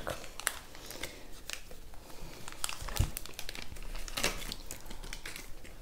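Plastic wrappers of Kinder Milk Slice snack cakes crinkling and crackling as they are peeled open and handled, with one soft low bump about three seconds in.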